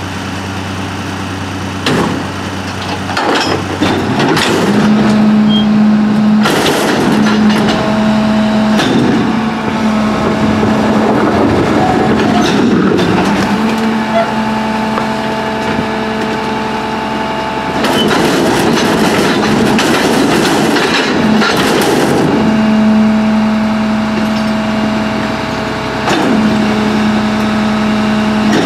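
Peterbilt 320 garbage truck's engine running up from idle to a high steady speed about five seconds in, driving the McNeilus rear loader's hydraulics as they lift a large refuse container and tip it over the hopper. Repeated loud crashes and rattles of trash spilling from the tipped container into the hopper come and go over the engine.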